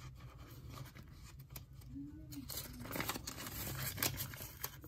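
Paper banknotes and envelopes being handled, rustling and crinkling, with light taps and scrapes.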